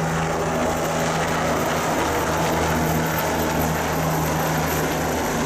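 Bell 429 twin-turbine helicopter flying low overhead just after takeoff: steady rotor and engine noise with a strong low hum.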